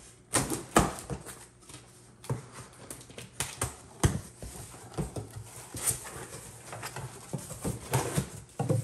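Scissors cutting through packing tape on a cardboard shipping box, then the cardboard flaps being pulled open, making irregular crackling snips, scrapes and knocks.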